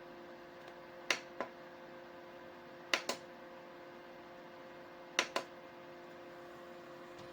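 Heelay 1200 ml portable dehumidifier running with a steady hum. Sharp double clicks come three times, about two seconds apart.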